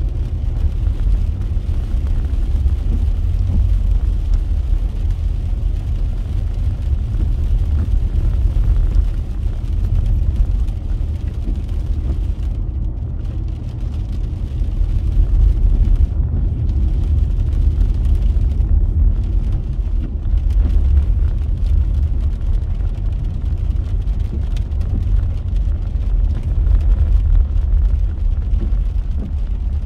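Road noise from a vehicle driving in the rain: a steady low rumble with an even hiss of rain and wet road above it. The hiss drops out briefly a few times midway.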